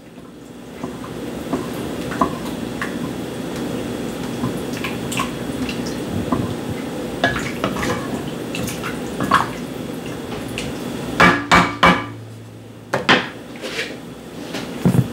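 Kitchen utensils clinking against a cooking pot, scattered light clicks over a steady background noise. There is a cluster of sharper knocks about eleven seconds in and a few more near the end.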